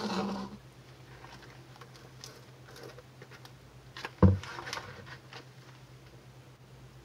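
Plastic cups and a plastic mixing bowl handled on a countertop: a short scraping rustle at the start as a gloved hand moves a cup, a single loud thump about four seconds in, and scattered small clicks, over a steady low hum.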